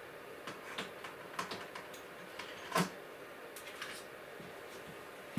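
Small plastic clicks and light handling noise as a reusable cable tie on a bundled cable is pushed open by hand, the loudest click a little past halfway.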